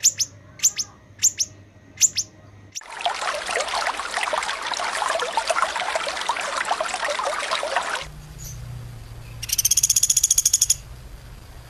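Edited songbird training audio: a bird gives short, sharp high calls about every half second, then a dense rushing sound of running water takes over for about five seconds. Near the end, a rapid buzzing trill sounds for about a second over a low hum.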